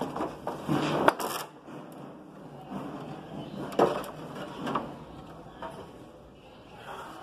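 Long pine boards knocking and scraping against each other and the rack as one is pulled out of a vertical lumber bin. There are sharp wooden knocks about a second in and again near the middle.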